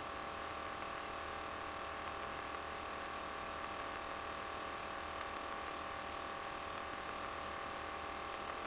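Faint, steady drone with a few steady tones from an RV-9A light aircraft in cruise, its engine and propeller heard faintly through the headset intercom audio.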